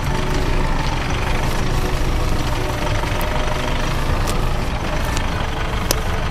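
Mitsubishi L200 pickup's diesel engine running steadily at low speed, with a few sharp clicks.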